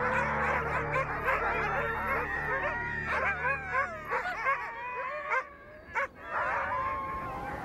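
A group of chained huskies howling and yipping together: many overlapping, wavering howls. The chorus briefly drops away about five and a half seconds in, then resumes.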